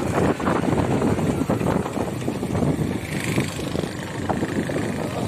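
A motorcycle riding along a road, its engine running under heavy wind buffeting on the microphone.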